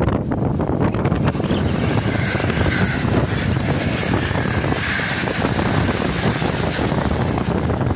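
Locomotive-hauled express passenger train passing close by: a steady, loud rush of wheels on rails and coaches going past.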